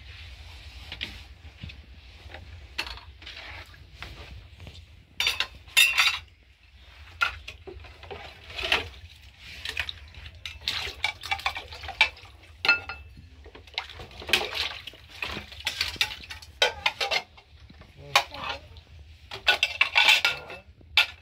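Dishes being washed by hand in a plastic basin: steel bowls, plates and a pan clinking and knocking together at irregular moments as they are scrubbed and set down.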